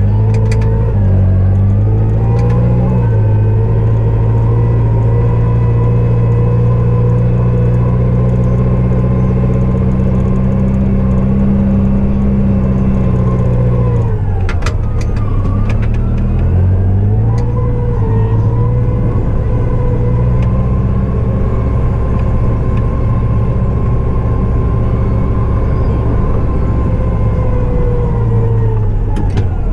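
Diesel engine of a snow-clearing vehicle running steadily under load. About halfway through the revs drop, with a brief knock, and climb back a few seconds later. The revs sag again near the end.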